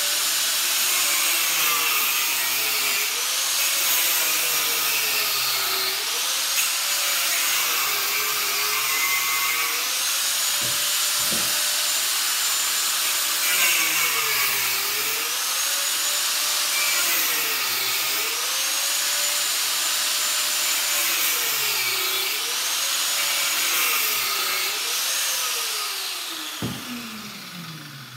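Corded angle grinder cutting down the side of a small electric motor clamped in a vise. Its whine dips in pitch each time the disc bites under load and recovers between passes. The disc is cutting through the motor's steel band to free the copper winding. The grinder is switched off near the end and spins down with a falling pitch.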